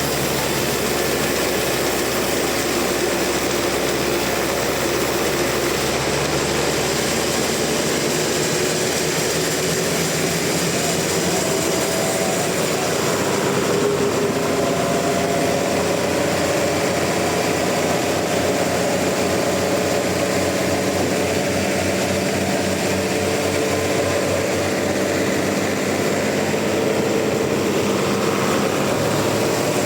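Sawmill machinery running steadily, its saw working through a large trembesi log, with a faint tone that drifts a little in pitch.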